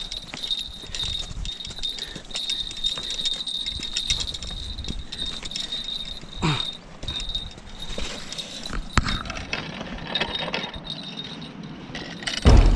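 Insects buzzing steadily at a high pitch, breaking off now and then, over light wind on the microphone, with scattered clicks and knocks from handling a spinning rod and reel on rock. Music starts loudly just before the end.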